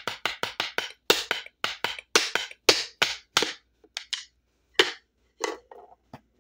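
Drumsticks striking a practice pad in quick, accented rhythmic patterns from a marching snare part, dry and without ringing. The playing stops about five and a half seconds in, followed by a couple of light knocks as the sticks are set down on the pad.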